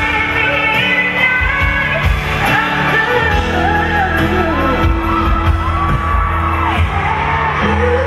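Live pop ballad: a woman singing into a microphone over piano accompaniment, her voice sliding between and holding long notes.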